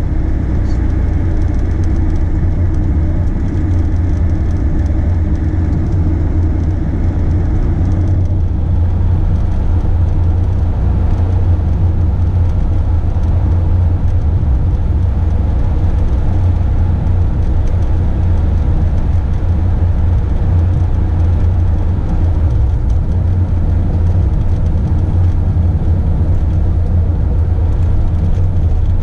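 Motorhome driving along a wet road, heard from inside the cab: a steady low rumble of engine and tyre-road noise.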